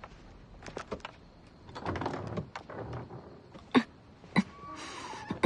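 Several sharp knocks and thuds with some rustling between them.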